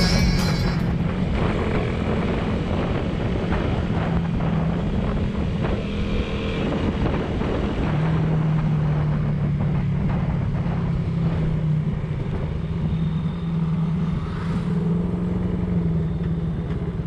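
Motorcycle engine running steadily while riding along a road, its note shifting up and down a little with speed, over steady wind rush.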